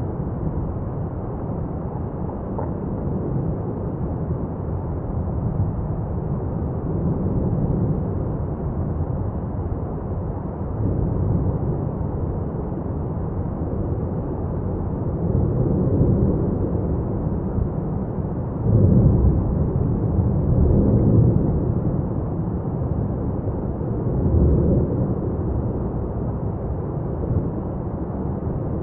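Etna's South-East crater in paroxysm, its lava fountain giving a continuous deep roar that swells louder several times, most strongly about two-thirds of the way through.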